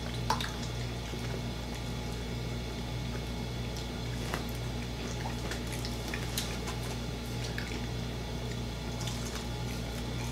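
Fried chicken being eaten by hand: scattered small crunches, chewing and mouth clicks over a steady low hum.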